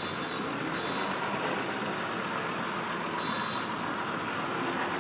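Large bus engine running steadily as the bus moves slowly across a narrow bridge. A faint high-pitched tone comes and goes three times.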